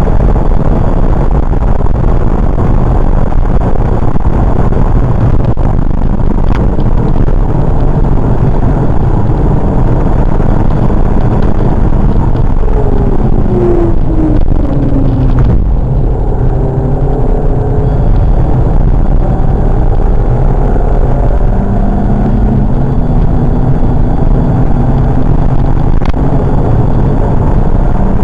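Volkswagen Golf Mk5 1.4 TSI four-cylinder engine with a K&N cold air intake, heard from inside the cabin on a hard track lap, together with loud road and wind noise. The engine note falls as the car slows about halfway through, then climbs again as it accelerates.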